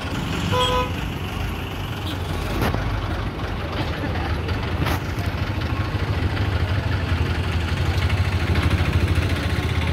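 Tow truck engine idling steadily with a low rumble. There is a short beep about half a second in, and two sharp knocks a little over two seconds apart near the middle.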